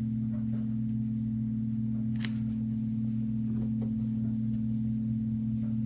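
A steady low hum that holds one pitch, with a few faint light clicks and one small metallic clink a little over two seconds in.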